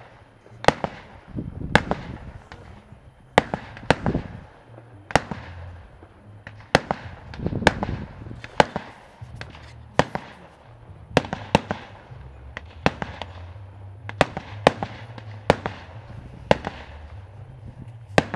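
Aerial fireworks shells bursting in a steady barrage: sharp bangs about once a second, some in quick pairs, each trailed by a rumbling echo.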